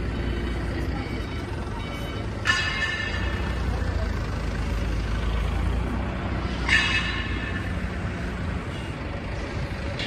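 Tracked skid steer loader's engine running steadily as the machine drives and turns on concrete, with two brief high squeals, one about two and a half seconds in and a louder one near seven seconds.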